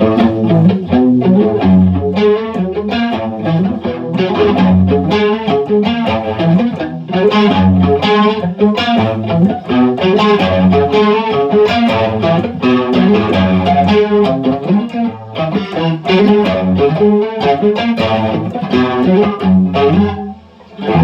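Electric guitar playing a busy picked riff through a Marshall Origin 20-watt amp, with an Electro-Harmonix Electric Mistress flanger and a little distortion added.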